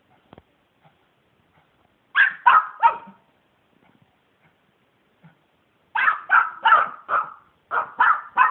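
Dog barking at a squirrel: three quick barks about two seconds in, then a longer string of rapid barks from about six seconds on.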